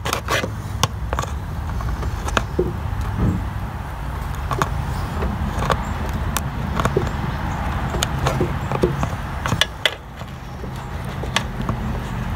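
Scattered small clicks and scrapes of a screwdriver and fingers working a rubber fuel-line grommet flush into a plastic gas tank, over a low steady hum.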